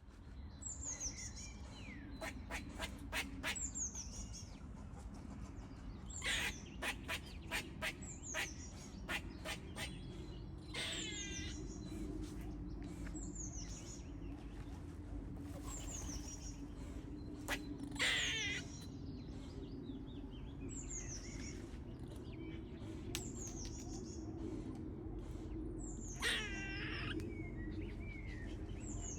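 Squirrel calling: a short, high, falling squeak repeated every second or two, with runs of rapid sharp clicks and a few longer falling squeals, over a low steady background hum.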